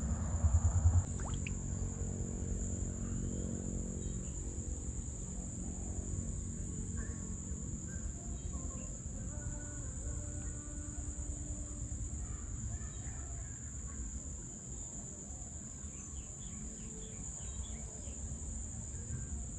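Insects trilling on one steady high note without a break, over a low outdoor rumble; a low hum is also heard for the first few seconds.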